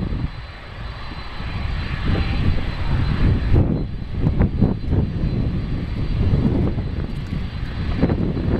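Jet engines of a Boeing 767-300 freighter, a deep uneven rumble that grows louder about two seconds in.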